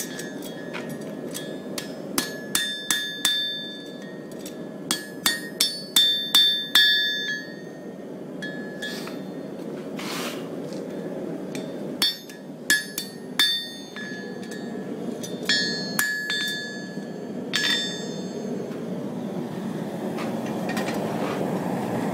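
Farrier's hammer striking a hot steel horseshoe on the anvil, drawing the clips, in short runs of ringing metallic blows separated by pauses. A steady low rushing hum runs underneath.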